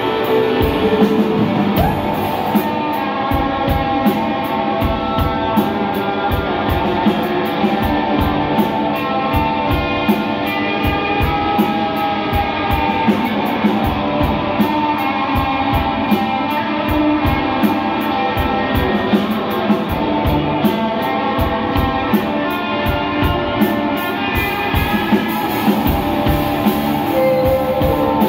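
Small rock band playing live: electric guitar, drum kit and keyboard, with a steady drum beat throughout.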